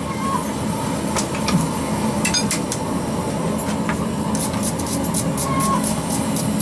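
Steady roar of a lit forge running, with scattered light metallic clinks and taps of steel and tools, which come thickest about four to six seconds in.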